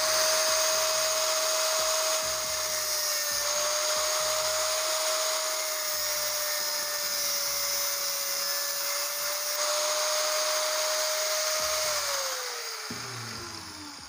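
Handheld angle grinder with a cutting disc running at a steady pitch as it cuts notches into a metal pipe bushing held in a vise. About twelve seconds in it is switched off, and its whine falls in pitch as the disc spins down.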